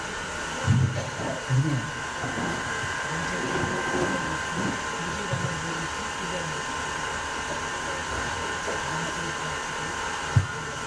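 A steady mechanical whirring hum with a few fixed tones in it, with faint low murmuring and a single sharp click near the end.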